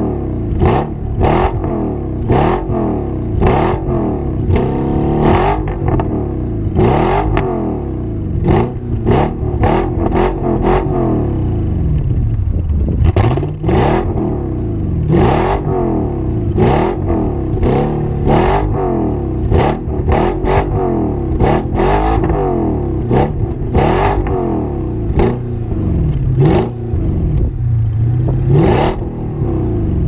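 An Audi 4.2 V8 is revved at a standstill in quick throttle blips, about one a second, its pitch rising and falling with each blip. The sound comes through a twin exhaust with its cutoff valves open, so it bypasses the rear mufflers.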